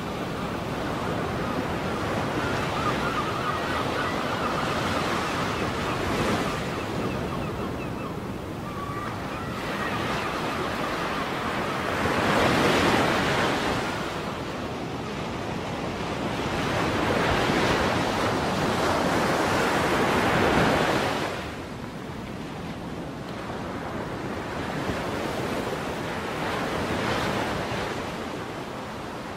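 Ocean surf: waves breaking and washing in over and over, the rush swelling and ebbing every few seconds, loudest through the middle, with some wind.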